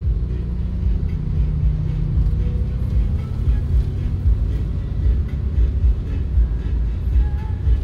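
Steady low rumble of a car driving in city traffic, heard from inside the cabin, with music playing underneath.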